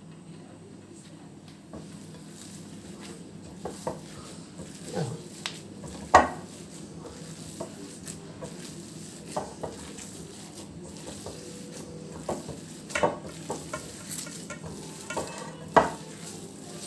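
Hands working a minced-meat kofta mixture in a bowl, with a handful of scattered knocks and clinks. The strongest knock comes about six seconds in.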